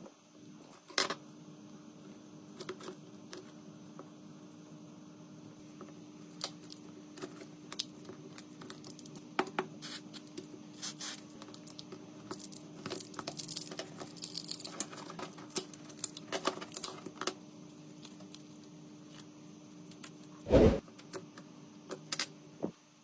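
Small tools and phone parts clicking and tapping on a work surface during a phone repair, over a steady faint hum. One louder knock comes near the end.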